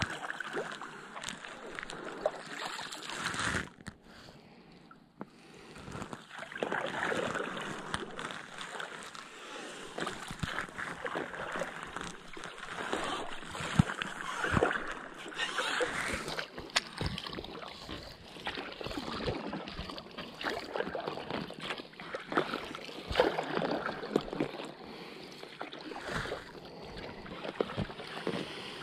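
Double-bladed kayak paddle dipping and pulling through calm water, stroke after stroke, with splashing and dripping in an uneven rhythm. There is a brief lull about four seconds in.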